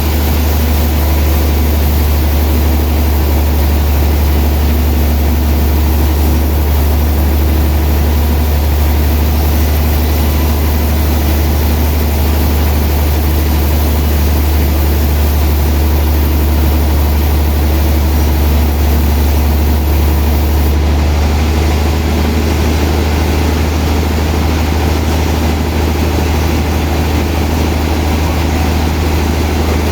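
Sawmill machinery running steadily: a loud, constant low hum with a wide layer of noise over it, unbroken throughout.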